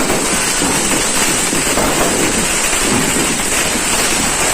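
Dense, continuous barrage of firecrackers and fireworks going off all around, so many pops that they merge into a steady crackling din.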